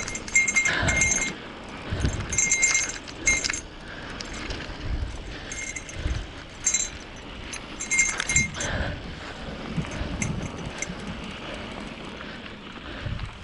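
Bicycle rattling and clinking over rough trail ground, with irregular metallic jingles and low knocks as it bounces along.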